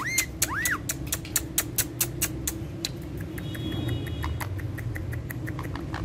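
A steady run of sharp clicks, about four a second, with two short whistled chirps right at the start, one rising and one rising then falling.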